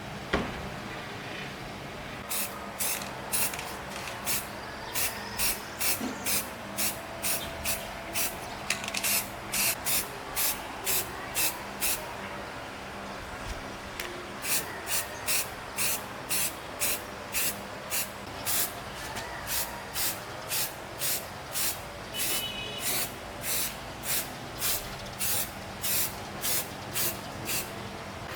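Repeated short bursts of spraying, about two a second, broken by a pause of about two seconds midway and then resuming.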